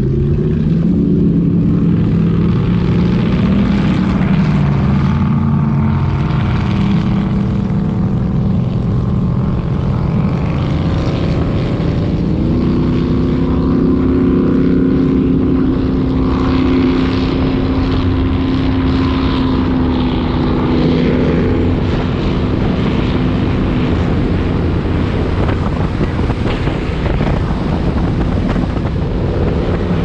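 Fountain 47 powerboat's three 1350 hp engines running at speed, the engine note climbing over the first few seconds and later holding steady for several seconds, under a continuous rush of wind and water.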